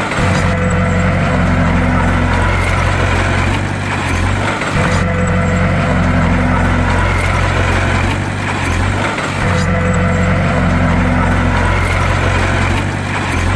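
Heavy bulldozer diesel engine running steadily at working load, with a pattern of brief dips and changes that repeats about every four and a half seconds.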